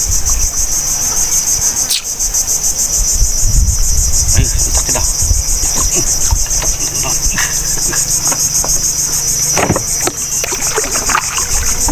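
Chorus of insects, a steady, fast-pulsing high buzz, over a low rumble, with a couple of sharp knocks.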